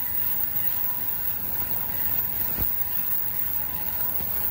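N700S Shinkansen passing through a station at about 185 km/h on a curve: a steady rushing of air and wheels on rail, with one low thump about halfway through.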